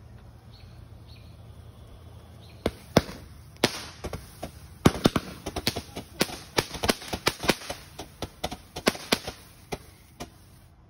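Phantom Fiery Cloud hybrid firework fountain going off: a quiet start, then from about three seconds in a rapid, irregular run of sharp cracks and pops, several a second, that dies away near the end.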